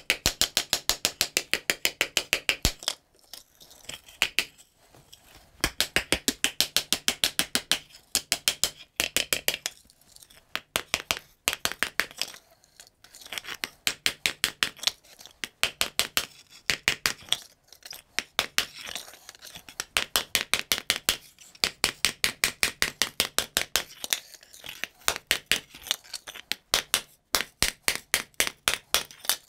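A hand hammer striking a hot 12-gauge sheet-iron skillet on an anvil as the pan's sides and rim are forged into shape. Quick metallic blows come at about five a second, in runs broken by short pauses.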